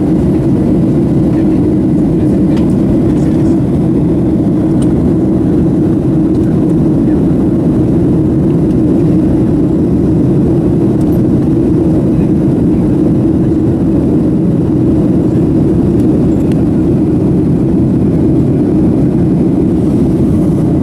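Steady in-flight cabin noise of a Boeing 737-700 airliner, heard inside the cabin: an even low drone from its CFM56-7B turbofan engines and the air rushing past the fuselage.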